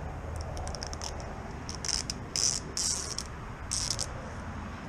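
Crackling, crinkling peel of adhesive tape or badge backing: a few quick ticks at first, then four short rasps from about two seconds in, as a stick-on car badge is fitted.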